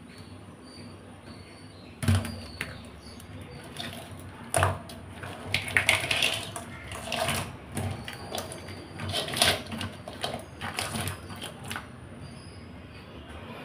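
Raw crabs' hard shells clattering and knocking against each other and the basket as hands sort through them, with scraping and rustling in between. The knocks are irregular and start about two seconds in.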